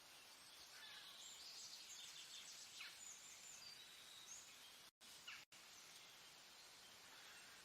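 Faint forest ambience: a steady high hiss with scattered short bird chirps. The sound cuts out completely twice for an instant about five seconds in.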